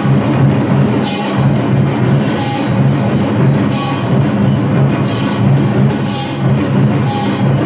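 Samul nori percussion ensemble playing: Korean drums (janggu and buk) beat a dense, driving rhythm, with bright metal gong crashes recurring regularly, a little more than a second apart.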